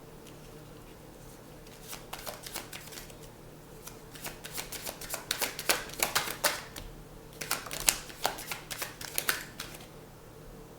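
A tarot deck being shuffled by hand: three bursts of rapid card clicks, the second and third longer and louder.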